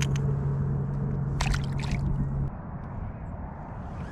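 Water sloshing and splashing close by, with one short splash or knock about a second and a half in. A steady low hum runs under it and cuts off about two and a half seconds in.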